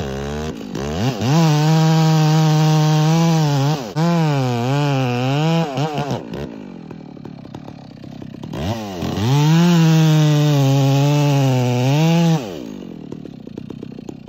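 Two-stroke chainsaw cutting into a maple trunk to fell it. It runs at full throttle with the pitch wavering and dipping as the chain bites the wood, drops to idle about halfway, revs up and cuts again, then falls back to idle near the end.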